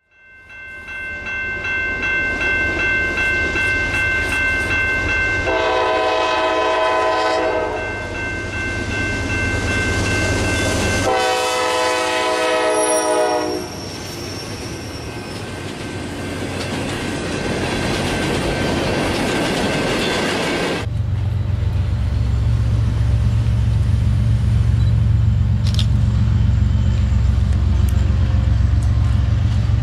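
Diesel freight locomotive horns sounding in long chorded blasts, the last one dropping slightly in pitch as it passes, over the rumble of a moving train. Then freight cars roll by on the rails, and about two-thirds of the way through the deep, steady rumble of diesel locomotives passing takes over.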